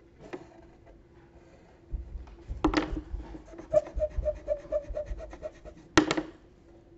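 Handling noise at the camera: clothing and an arm rubbing and bumping against the microphone, with deep thumps, two sharp knocks and a quick run of light ticks between them.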